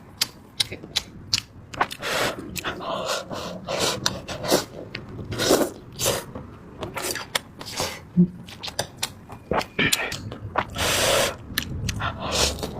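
Someone slurping and chewing instant noodles close to the microphone: quick wet mouth clicks between noisy slurps, with a longer slurp about eleven seconds in.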